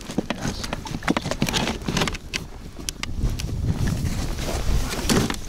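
Footsteps crunching through snow, a few uneven crunches a second, with wind rumbling on the microphone.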